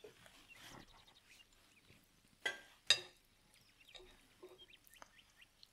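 Faint handling sounds of a non-stick frying pan being tilted to spread freshly poured pancake batter, with two short sharp clicks about two and a half and three seconds in.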